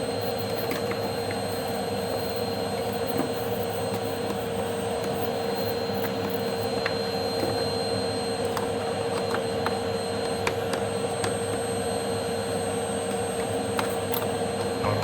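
Steady whir of a small electric motor moving air, holding one constant pitch, with a few faint clicks.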